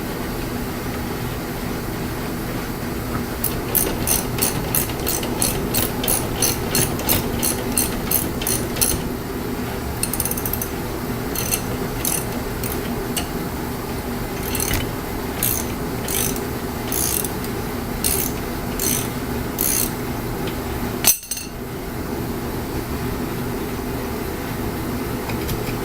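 Ratchet wrench clicking in quick even runs of about three clicks a second, then in slower, sparser strokes, as lug nuts are run down on a car wheel. A steady hum runs underneath, and a single sharp knock comes near the end.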